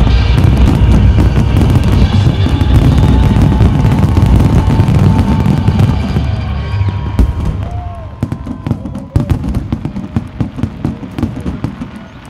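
Fireworks finale barrage over music: a dense, continuous rumble of aerial shell bursts with sharp cracks, thinning after about six seconds into separate bangs that grow fewer and quieter toward the end.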